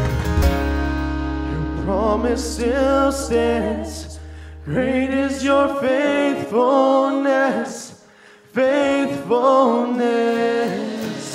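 Live worship music: voices singing a slow song over guitar and held bass notes, with a short break in the singing about eight seconds in.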